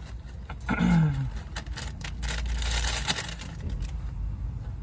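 Plastic Kurkure snack packet crinkling and rustling as it is handled and poured, with a short low hum of a voice about a second in.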